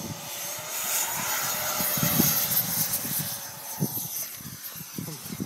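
Electric ducted fan of a fibreglass RC Viperjet model at full power on its takeoff run: a high rushing whine that swells, peaks about two seconds in, then fades. Gusty wind buffets the microphone underneath.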